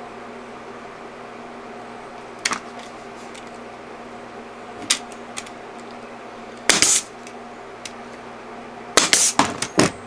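Pneumatic nailer firing nails to toenail wooden boards together: single sharp shots about two and a half, five and seven seconds in, then a quick run of several near the end, over a steady fan hum.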